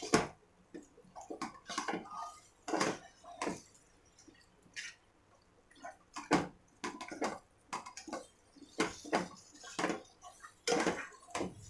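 A spatula stirring and scraping a thick soya chunk keema mixture in a cooking pot, in irregular short strokes with pauses between them.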